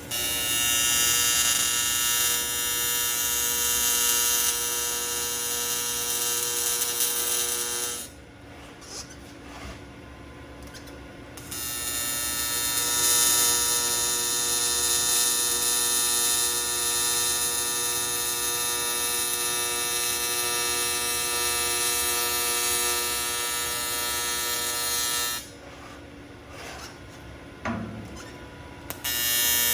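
AC TIG welding arc on aluminum buzzing steadily. It comes in three runs: about eight seconds, a pause of three to four seconds, about fourteen seconds, then another pause before the arc strikes again near the end.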